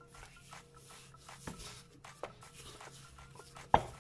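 Soft handling of bread dough on a floured wooden board, with a few light taps and one sharp knock near the end as a rolling pin comes down on the board.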